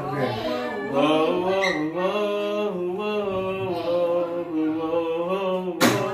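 A voice singing unaccompanied in long, drawn-out, chant-like held notes. A single sharp clap or knock near the end.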